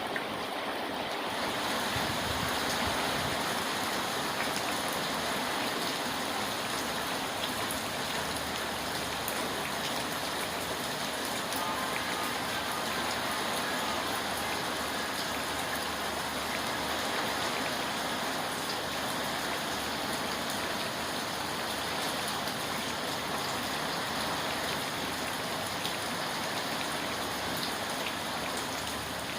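Steady rain, an even hiss of falling water with no break.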